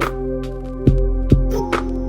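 Music: held notes and chords over a beat of low drum hits and crisp high percussion strikes.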